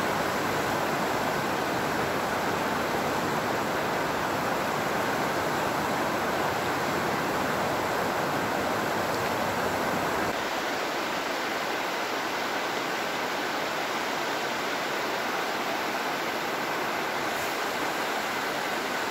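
Water rushing steadily over a reservoir overflow weir. About ten seconds in, the low rumble drops away and the rush carries on a little quieter.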